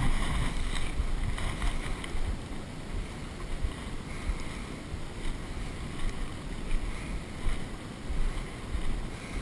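Wind buffeting the microphone outdoors: an uneven low rumble that rises and falls in gusts, over a steady haze of outdoor noise.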